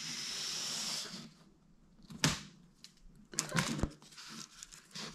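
Handling noise from measuring out a strip of rubber foam seal tape: a steady hissing rustle for about a second and a half, then a few sharp clicks and knocks.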